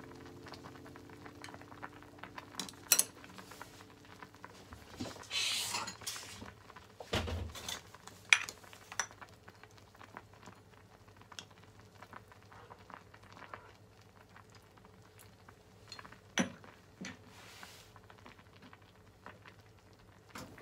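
Chopsticks and a ladle clinking and knocking against a clay donabe hotpot while its contents are arranged and skimmed: scattered sharp clicks, a short rush of noise about five seconds in and a low knock just after.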